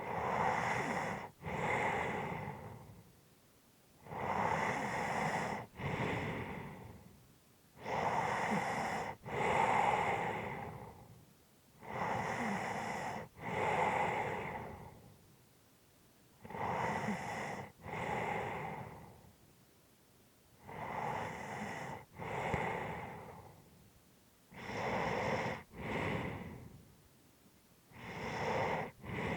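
A sleeping person's slow, heavy breathing. There are eight deep breaths, about one every four seconds, each an in-breath and an out-breath with a brief catch between them.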